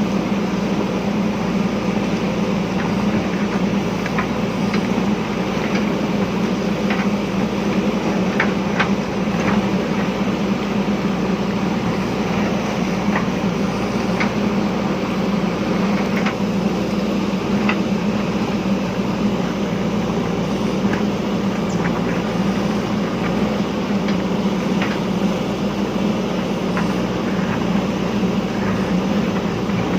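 JCB backhoe loader's diesel engine running steadily while digging, with scattered light knocks and clicks.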